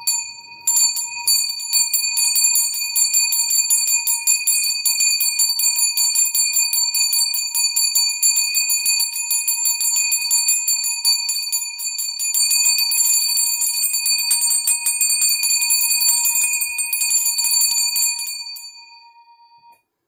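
A handbell shaken rapidly, its clapper striking many times a second so that it rings on continuously. Near the end the shaking stops and the ring dies away.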